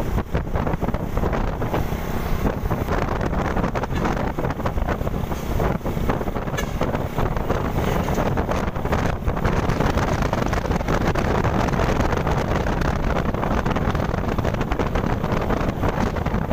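Wind buffeting the microphone over the steady running and road noise of a moving vehicle.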